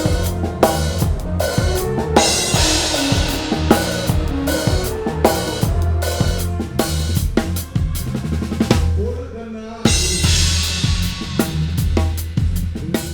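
Drum kit playing a steady groove of kick and snare hits, heard through overhead microphones with EQ applied, over low sustained notes. Cymbal crashes ring out about two seconds in and again around ten seconds, with a short break in the pattern just before the second.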